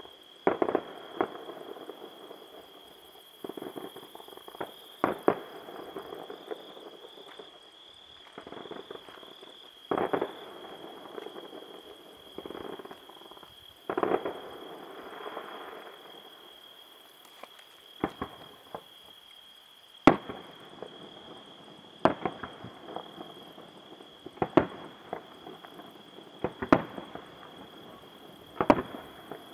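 Fireworks bursting, with a sharp bang every one to two seconds, some followed by a short crackle. A steady high-pitched insect trill runs underneath.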